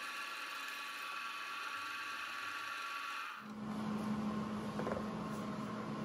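Bridgeport milling machine running with a steady whine, its end mill in a slot in steel angle iron. About three and a half seconds in it cuts off abruptly and a steady low hum takes over, with light handling noise.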